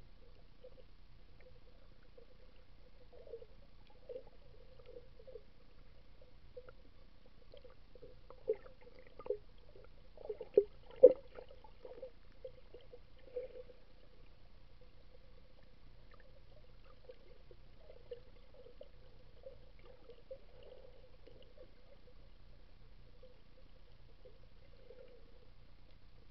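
Muffled underwater sound picked up by a camera in its waterproof housing: faint gurgling and crackling, with a cluster of sharp knocks about eight to eleven seconds in, the loudest near the end of that cluster.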